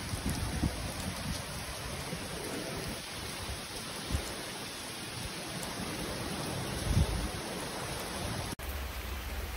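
Steady rain falling, an even hiss, with scattered low bumps and one louder low thump about seven seconds in. The hiss changes abruptly near the end.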